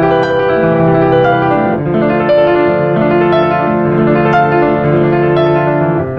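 Slow piano music played on a Yamaha electronic keyboard: sustained chords, a new chord about every second.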